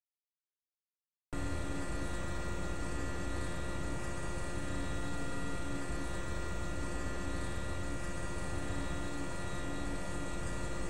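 About a second of silence, then a steady electrical hum with several high, fixed whining tones and a low tone that pulses on and off, running unchanged.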